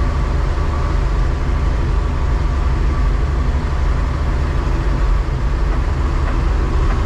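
John Deere combine engine running steadily, heard from inside the cab: a deep, even rumble with a steady whine above it.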